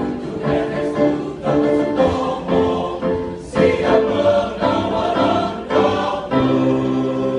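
Choir singing a song in several voice parts, phrase after phrase, settling into a held chord near the end.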